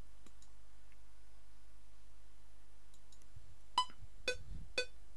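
Faint steady low hum from an open audio input, then, about four seconds in, a run of short pitched click-beeps, about two a second: a DAW metronome clicking as the recording transport runs.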